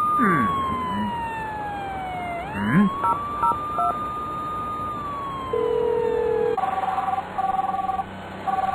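Ambulance siren wailing slowly, its pitch sliding down, sweeping back up and sliding down again, with a short steady lower note near the middle. About two-thirds through, a phone starts ringing in repeated short bursts that alternate between two tones.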